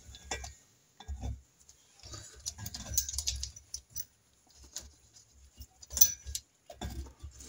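Scattered small metal clicks, rattles and light knocks as a C-clamp-style valve spring compressor is adjusted and positioned against a Norton Commando cylinder head, with one sharper click about six seconds in.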